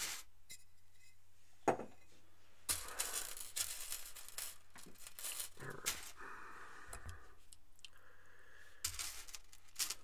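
Small metal chainmail rings clinking and jingling as they are handled and woven: a few scattered sharp clicks over a low steady hum.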